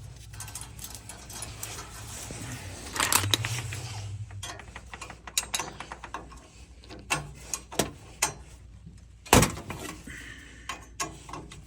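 Metallic clinks, clicks and knocks of hand tools and small boiler parts being handled while the thermocouple is swapped, with a scrape about three seconds in and one loud knock about nine seconds in, over a low steady hum.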